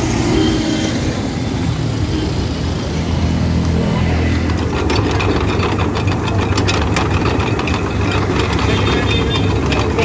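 Sugarcane juice crusher running with a steady low drone, its rollers crackling as cane stalks are fed through by hand. Street noise comes first, for about the first three seconds.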